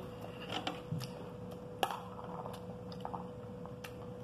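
Eating pomegranate arils with a spoon from a clear plastic plate: scattered small clicks of the spoon on the plate and the crunch of chewing the hard seeds, the sharpest click about two seconds in, over a faint steady hum.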